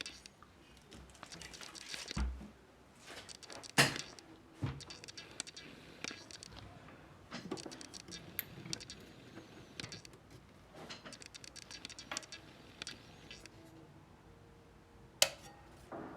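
Irregular small clicks, taps and rattles of hard objects being handled, with two sharp clicks, one about four seconds in and one near the end.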